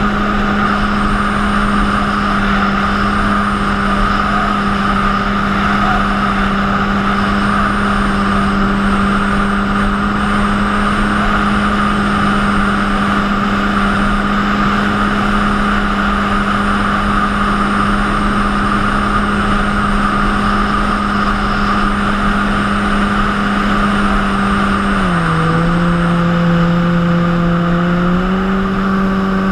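Jet ski engine running at a steady cruising speed over a constant rush of water. About 25 seconds in, the engine note drops as the throttle eases, then rises again near the end.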